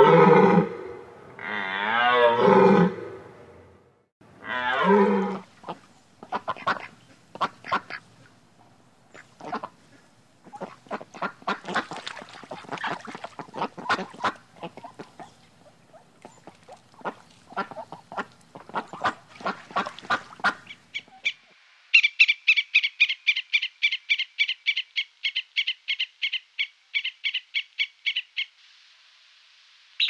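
White domestic ducks quacking in a long series of short quacks. The quacks are preceded by a few low, drawn-out animal calls at the start and followed by a rapid, even run of high chirps, about four a second, for several seconds.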